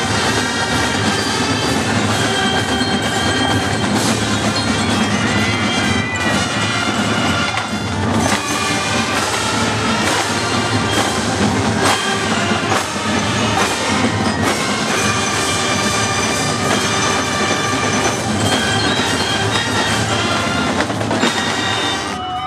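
A massed marching band playing together: flutes, clarinets, saxophones and brass over snare and bass drums, with bell lyres ringing through. The music stops abruptly at the very end.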